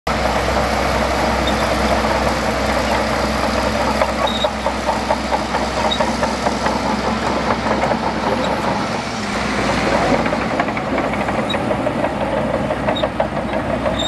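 Shantui DH17C2 bulldozer at work in sand: its diesel engine drones steadily under a dense, rapid rattle of clicks and clanks.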